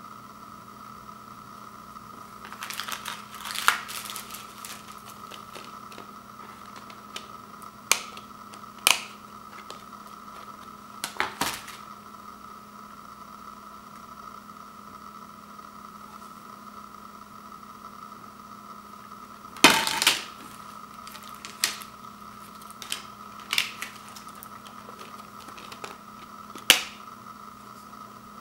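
Blu-ray discs and a plastic Blu-ray case being handled: about ten scattered clicks and taps, the loudest about two-thirds of the way through, over a steady background hum.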